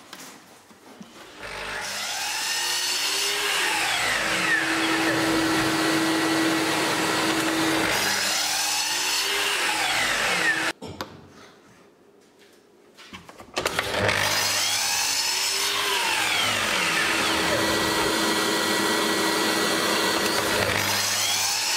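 A sliding compound miter saw running and cutting small wooden blocks. The motor runs steadily for about nine seconds, stops about eleven seconds in, and starts again a couple of seconds later, with repeated sweeps in pitch as the blade goes through the wood.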